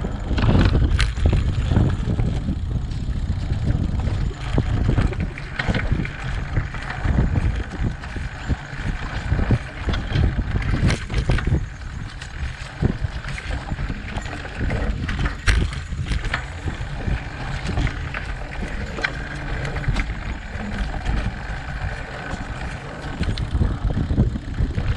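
Mountain bike ridden along a dirt trail: a steady rumble of wind on the handlebar camera's microphone and tyre noise, broken by frequent knocks and rattles from the bike as it rolls over bumps.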